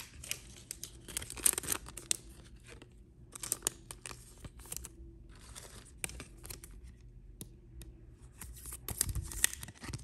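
Trading cards and a plastic toploader being handled: irregular bursts of rustling and scraping with light clicks, over a faint steady hum.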